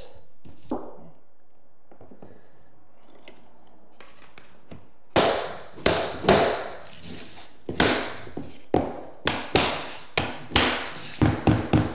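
A claw hammer tapping a plastic tapping block against the edge of a vinyl plank, driving the click-lock joint closed so the seam snaps into place. The taps start about five seconds in and come roughly two a second, quickening into a fast flurry near the end.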